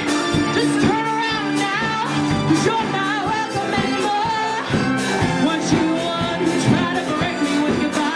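Live band music: a woman singing a disco song over electric guitar, with a steady beat.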